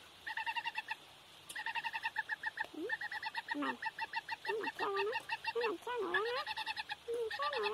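Young chicken calling while it is stroked: bouts of rapid, evenly repeated chirping trills. From about three seconds in these are joined by lower, wavering calls.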